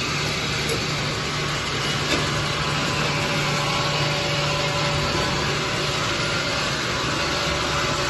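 Automatic liquid-soap bottle filling line running: a steady mechanical hum and hiss, with a few faint clicks.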